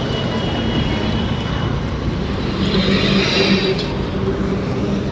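Road traffic running: a steady rumble of engines and tyres with a low engine hum, swelling briefly about three seconds in as a vehicle passes.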